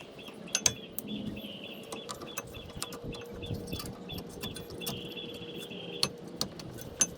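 Metallic clicks and clinks of new front brake pads with their spring clips being fitted into the caliper bracket, with a few sharper knocks about half a second in, about six seconds in and near the end.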